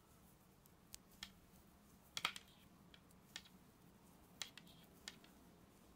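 Wooden-tipped circular knitting needles clicking faintly against each other as stitches are worked, a few irregular taps with the sharpest about two seconds in.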